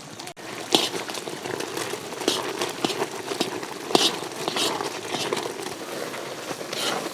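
Short knocks and scrapes of a utensil working in a cooking pan, about one every second, over a low steady background, as fresh grated coconut goes into the jaggery syrup.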